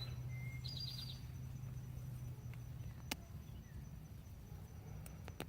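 Quiet garden ambience: a short high chirp of about five quick pulses about a second in, a sharp click about three seconds in and a few more clicks near the end, over a faint low hum.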